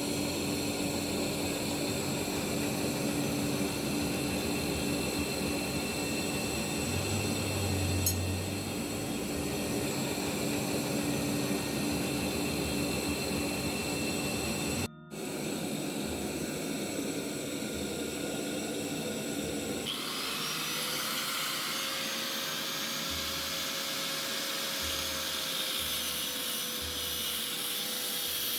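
Electric power tools running steadily with a continuous whine. The sound breaks off briefly about halfway. A different, higher-pitched tool takes over about two-thirds in.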